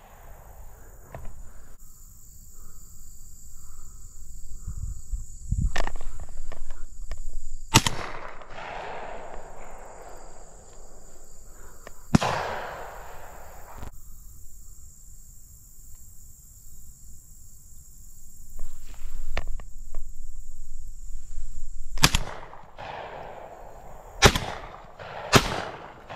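Shotgun shots fired at doves: about five sharp reports, two about four seconds apart and then three in quick succession near the end, the earlier ones trailing off in a long echo.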